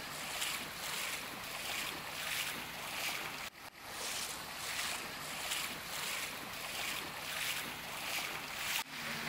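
Floodwater sloshing and splashing as a group wades knee-deep through a flooded street, in a rhythmic surge of about two splashes a second. The sound breaks off briefly twice.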